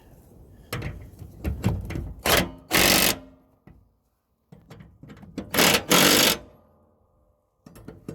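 Impact wrench hammering in short bursts, tightening the mower's blade bolts: two runs of rapid rattling a few seconds apart, each a brief burst followed by a longer one, after a few knocks of handling.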